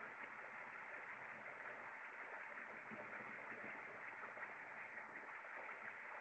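Faint, steady hiss of background noise from an open microphone on a video call, with no speech.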